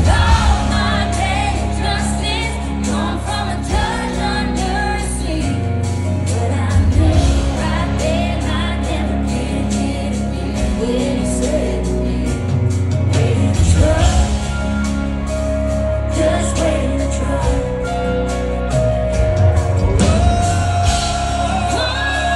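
Live country-rock band performance with singing over bass, drums and guitars.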